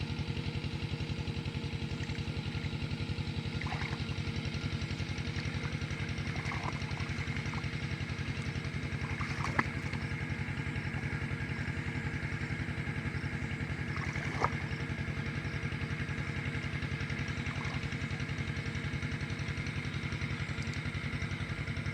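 Small engine running steadily at a constant speed, with a sharp knock about ten seconds in and another about fourteen seconds in.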